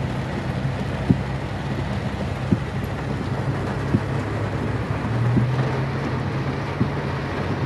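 Inside a car moving through a flooded street in heavy rain: the engine runs with a steady low hum under the noise of rain and water on the car. A short knock comes about every second and a half.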